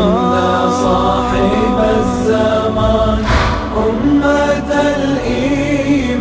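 Voices chanting an Arabic religious song in unison, holding long notes that waver in pitch.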